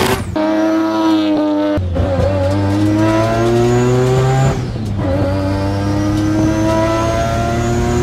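Turbocharged three-rotor rotary engine of a Mazda RX-7 pulling hard through the gears, heard from inside the cabin. Its pitch climbs steadily, drops at two gear changes about two and about five seconds in, then climbs again, with a high whine rising alongside.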